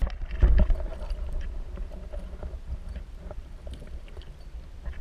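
Muffled water noise around a kayak, heard from underwater, with a heavy low thump about half a second in and scattered light clicks.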